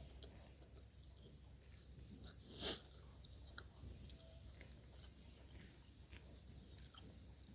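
Faint chewing and small wet mouth clicks of someone eating softened chocolate, with one short hiss about two and a half seconds in.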